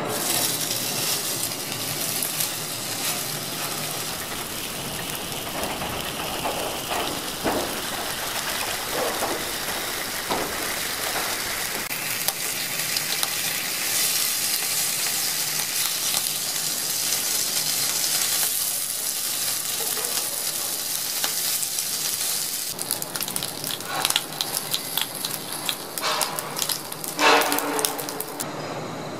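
Bacon sizzling steadily as it fries in a nonstick pan in its own rendered fat, with no oil added. A run of sharp knocks and clicks near the end.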